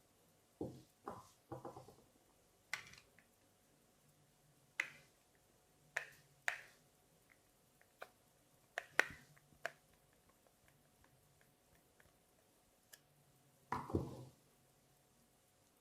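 Irregular clicks and light knocks, about a dozen, of small parts and tools being handled while a Shimano Activecast 1080 fishing reel is taken apart, with a short rattling clatter near the end.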